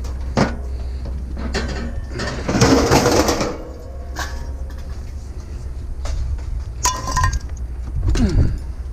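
Metal scrap parts clinking, knocking and rattling as they are handled and pulled apart, with a longer scraping rattle about three seconds in and a short ringing clink near the end.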